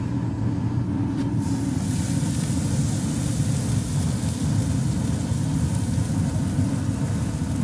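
Wind buffeting the microphone: a steady, uneven low rumble, with a fainter hiss coming in about a second and a half in.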